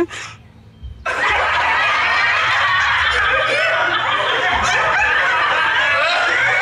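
Many voices laughing together, a dense steady crowd laugh that starts suddenly about a second in after a short quieter spell.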